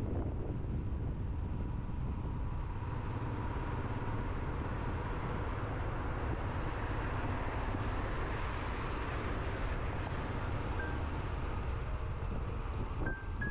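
Motorcycle riding at a steady pace: engine and road noise with no change in speed.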